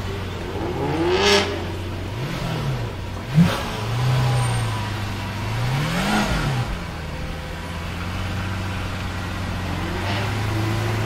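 Lamborghini Veneno's V12 idling and blipped several times, the pitch rising and falling with each rev. There is a single sharp crack about three and a half seconds in.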